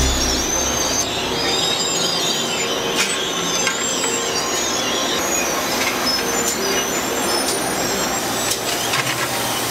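Chain conveyor of a frying-pan coating line running, a steady mechanical din with wavering high-pitched squeals and scattered metal clicks.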